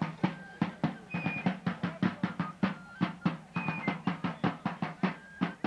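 Fife and field drum playing a march: quick, steady drum strokes with a high fife playing short notes above them.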